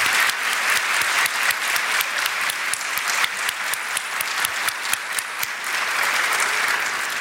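A large audience applauding, many hands clapping in a dense, steady patter.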